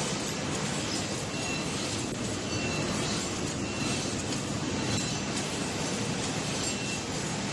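Grinding machine cutting serrated teeth into the edge of a table dinner knife held by hand: a steady rushing grind, with a brief faint squeal about every second and a bit.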